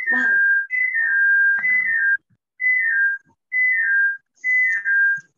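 Whistling coming over an unmuted video-call microphone: a short falling figure of two or three pure notes, repeated about once a second.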